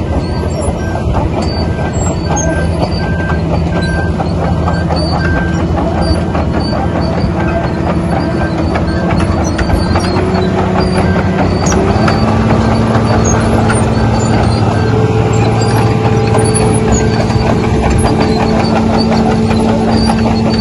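Wirtgen W1200F cold planer's diesel engine running steadily, its pitch stepping up about ten and again about twelve seconds in as the revs rise. A faint repeating high beep runs under it.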